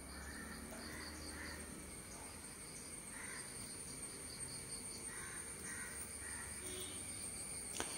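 Faint background of high chirping repeated evenly, about three times a second, typical of insects, with a few soft distant bird calls.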